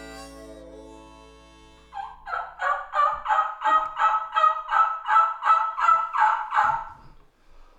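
A run of about fifteen turkey yelps, evenly spaced at about three a second, starting about two seconds in as guitar music fades out.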